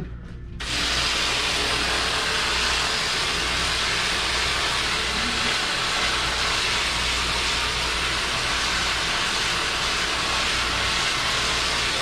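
A steady, even hiss with a faint low hum beneath it, beginning about half a second in after a brief dip and holding unchanged, with no clicks or pops.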